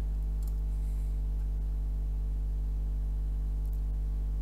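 Steady low electrical hum from the recording chain, with a couple of faint mouse clicks, one about half a second in and one near the end.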